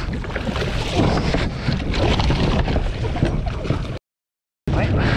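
Water splashing as a gaffed dorado thrashes at the surface beside the boat, over wind buffeting the microphone. The sound cuts out abruptly for about half a second about four seconds in.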